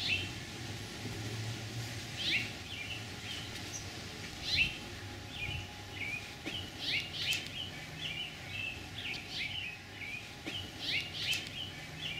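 Small birds chirping: a few separate calls at first, then a quick run of chirps through the second half.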